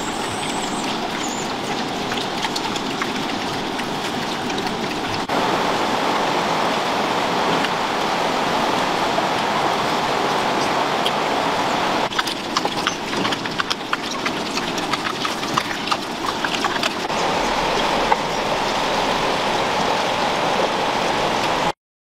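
Steady rushing of a stream, with scattered wet clicks and smacks of pigs eating rice from a wicker basket.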